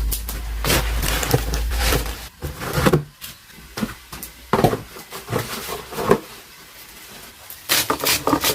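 A series of irregular knocks and clicks, with a low rumble during the first two seconds and a quick cluster of knocks near the end.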